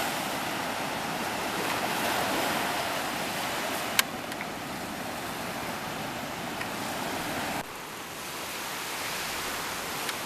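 Sea surf washing onto a sandy beach, a steady rush of breaking waves. A single sharp click comes about four seconds in, and the surf sound drops suddenly to a lower level a little over halfway through.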